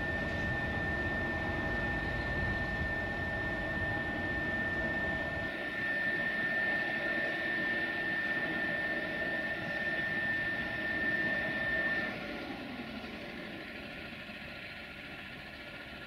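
Electric screw-jack lifting columns raising a railway coach: a steady high motor whine over a low rumble. The rumble drops away about five seconds in and the whine cuts off about twelve seconds in.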